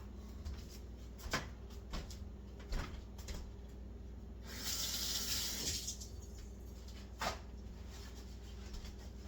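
Kitchen tap running into the sink for about a second and a half as a spatula is rinsed off, with a few short knocks before and after.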